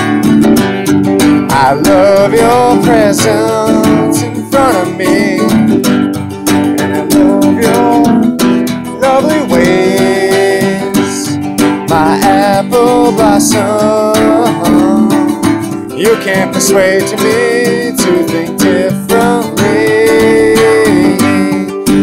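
A man singing to his own strummed acoustic guitar.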